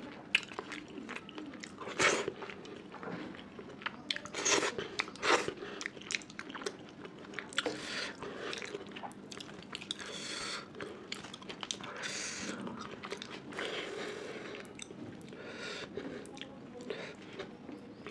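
Close-miked chewing and mouth sounds of a person eating Indian food: wet smacks, clicks and bites. The loudest come about two seconds in and again around four to five seconds in.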